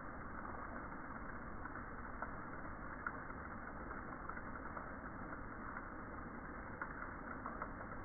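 Steady rain falling, with scattered drops tapping close by.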